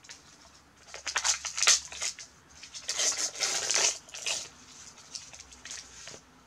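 Gift wrapping paper rustling, crinkling and tearing as a present is unwrapped, in two main bursts with a few smaller rustles after.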